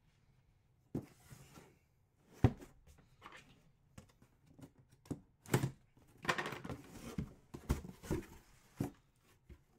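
A white cardboard box being handled and its lid lifted open: irregular knocks and thumps of cardboard, with scraping and rustling in between, the sharpest knock about two and a half seconds in.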